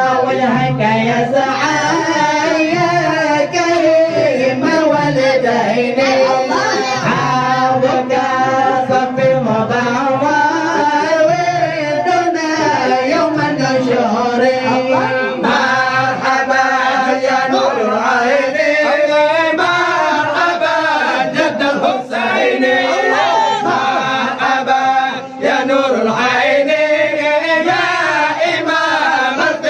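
Men chanting syair, sung verse, into a hand-held microphone, amplified. A single long, wavering melodic line carries on with only brief breaths between phrases.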